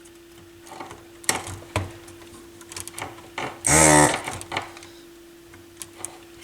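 Electric desoldering tool's vacuum pump buzzing for about half a second near the middle, with small clicks and taps of the tool on the circuit board over a steady hum. The tool is being used to suck solder from battery legs too fat for its nozzle.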